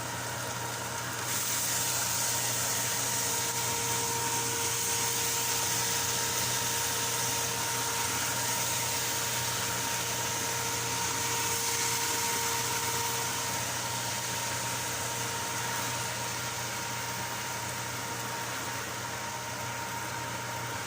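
Steady machine hum with a hiss; the hiss grows louder about a second in.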